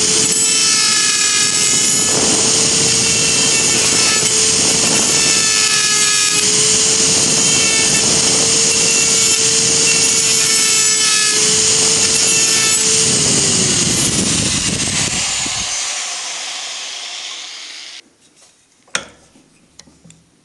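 Makita GD0600 die grinder running at a steady high pitch while its burr grinds along a crack in a cast aluminium starter motor end case, cutting the crack out to prepare it for TIG welding. About two-thirds of the way through it is released, and the pitch falls as it winds down over several seconds. A couple of light clicks follow near the end.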